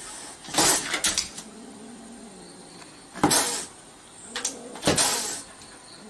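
A cat's low, faint yowling, broken by several short, harsh noisy bursts.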